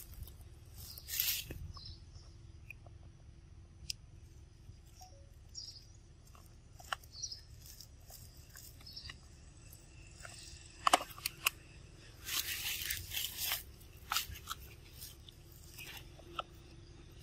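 Long-tailed macaques eating: scattered crunching and chewing clicks, with a few sharp clicks just before a louder stretch of crunching about twelve seconds in.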